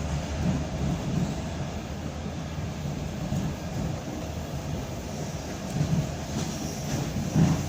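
ED9M suburban electric train running along the line: a steady rumble of wheels on rail with the clickety-clack of wheels passing over rail joints, two louder knocks near the end.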